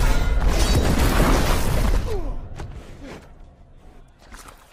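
Film battle-scene sound mix: dense crashing and booming with a deep low rumble for about two seconds, then falling away to quieter scattered sounds.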